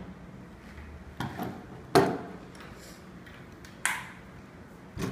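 A handful of separate knocks and clunks as the inspection camera's wheeled tray and telescopic pole are handled on a wooden tabletop, the loudest about two seconds in.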